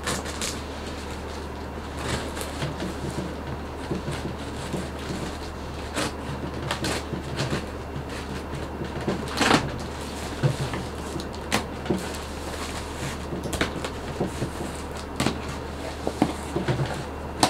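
A taped cardboard shipping box being opened by hand: scattered scrapes, taps and rustles of cardboard and packing tape, with the sharpest knock about halfway through. A steady low hum sits underneath.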